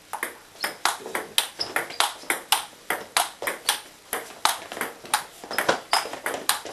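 Table tennis rally: the ball clicking off the paddles and bouncing on the table in a quick, steady run of sharp clicks, several a second.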